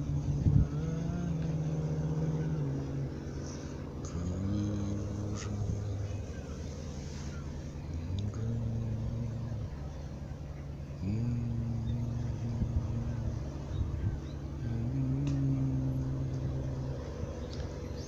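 A man humming a slow tune without words, in long held low notes that each slide up at the start and step to a new pitch, with short pauses between.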